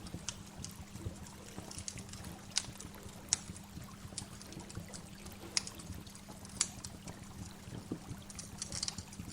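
Waterfall water pouring and trickling in a steady rush, with a few sharp splashes and drips on top.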